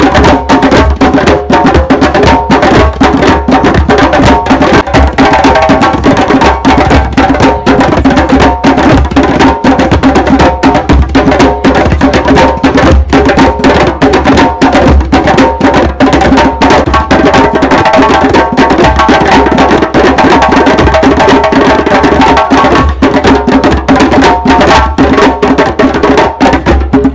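Several djembes played together by hand in a loud, dense, fast rhythm. The drumming stops abruptly at the very end.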